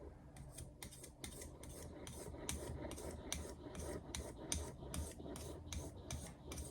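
Rapid, even back-and-forth scraping strokes of metal against a Chosera 3000 whetstone, about four strokes a second, a dry rasping rub.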